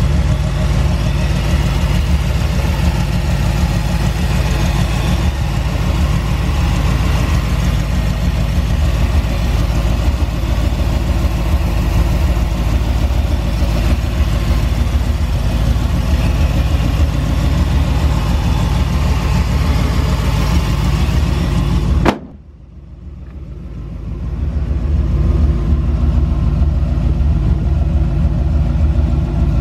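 1969 Ford Bronco's 351 V8 running steadily through a Flowmaster dual exhaust, a low, even engine note. About three-quarters of the way through the sound cuts off suddenly and swells back up over a couple of seconds.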